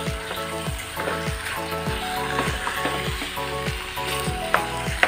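Chicken and pepper masala sizzling in a non-stick pot while being stirred and turned with a wooden spatula, with a couple of sharp clicks near the end. Background music with a steady beat plays underneath.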